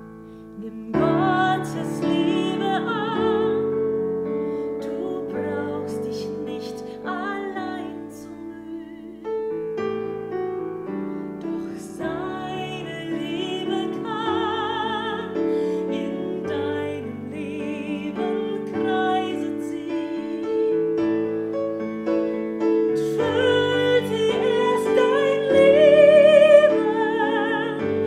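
A woman singing with strong vibrato to her own accompaniment on a Kawai digital piano, which plays held chords. The voice comes in about a second in and is loudest on a high held note near the end.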